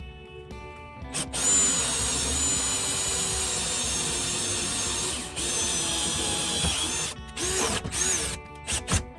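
Power drill running steadily with a high whine while drilling into a metal barrel latch, easing once briefly. Near the end come several short bursts as the trigger is squeezed and released, the whine rising and falling with each.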